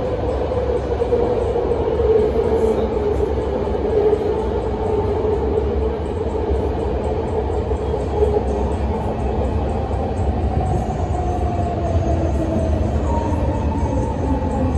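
Interior sound of a legacy BART A2 car: a steady low rumble of wheels on rail under a motor whine that slowly falls in pitch as the train slows into a station, with a second, higher whine falling near the end.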